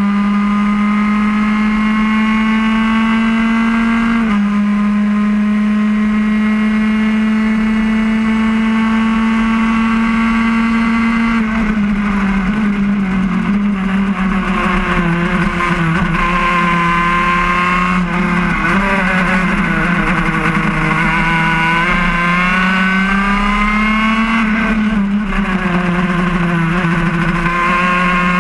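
Onboard sound of a road-racing kart's two-stroke engine at high revs, its note climbing slowly down a straight with one small step down about four seconds in. In the second half the note falls and rises again several times as the kart brakes and accelerates through a run of corners.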